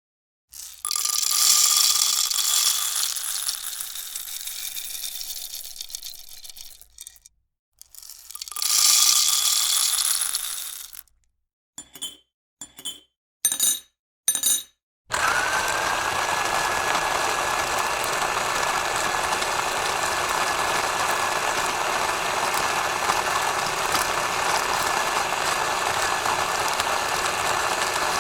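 Coffee-shop machinery: two spells of hissing, a few short clattering bursts, then from about halfway a steady machine run with a thin high whine that rises as it starts.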